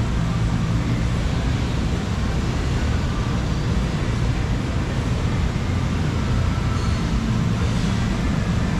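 Steady low rumble and hiss of a working plastics-moulding factory floor: machinery and ventilation running, with no single sound standing out.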